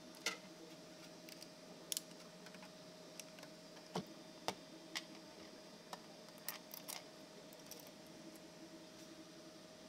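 Scattered light clicks and taps as small 3D-printed plastic parts are handled, snapped off and set down on a flexible steel printer build sheet, about eight at irregular intervals, over a steady hum with a faint whine.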